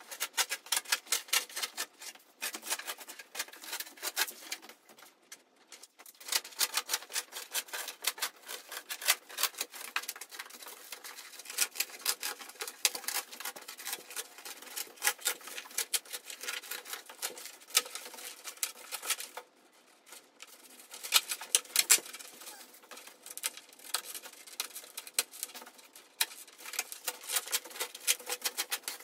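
Peel ply being pulled off a freshly cured, vacuum-bagged carbon fiber laminate: a dense, irregular crackling as the fabric tears free of the resin, stopping briefly twice.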